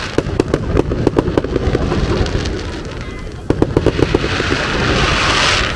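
Aerial fireworks going off in rapid volleys: two runs of many quick, sharp bangs. Near the end a dense hissing crackle swells, then cuts off suddenly.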